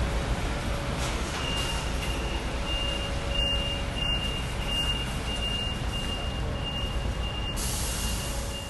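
Street traffic noise as a large coach bus drives past. From about a second in, a high electronic beep sounds in short repeated pulses.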